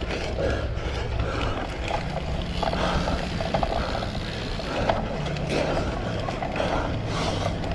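Riding noise from a cyclocross bike at race pace: wind rumbling on the camera microphone and tyres running over the course, with a few sharp knocks from the bike.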